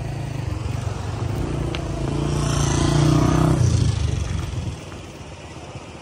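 A motor vehicle's engine passing, a low rumble that swells to its loudest about three seconds in and fades away by about five seconds.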